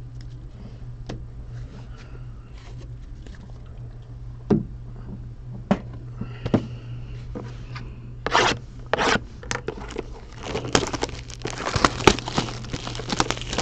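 Trading-card pack being handled and torn open: a few light clicks and slides of cards, then two short rips about eight and nine seconds in, followed by dense crinkling and scraping of the wrapper and cards. A steady low hum runs underneath.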